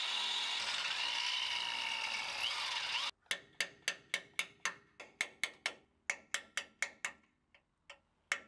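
Power drill running steadily for about three seconds as it drills out a steel rivnut with stripped threads, then stopping suddenly. A run of evenly spaced sharp metallic clicks follows, about four a second, tapering off near the end.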